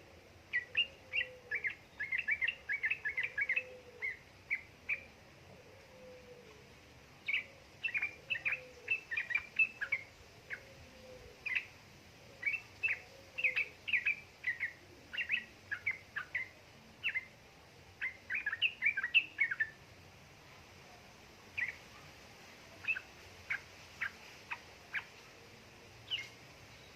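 Yellow-vented bulbul (trucukan) chattering: quick runs of short, sharp chirping notes in bursts. The notes thin out to scattered single chirps near the end.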